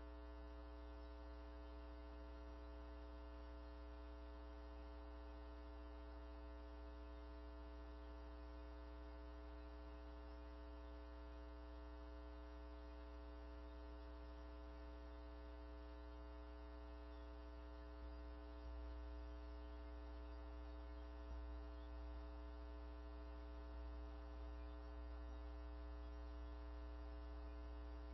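Faint, steady electrical hum: a buzz of several fixed tones with no other sound, typical of mains hum in an audio feed.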